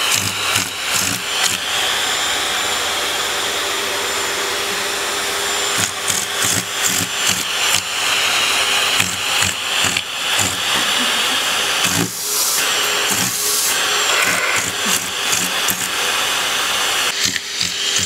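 Vacuum cleaner running steadily, its suction hiss coming through the hose nozzle, with many short knocks and rubbing noises as the nozzle is gripped and pressed against fur. The hiss changes pitch about two-thirds of the way in.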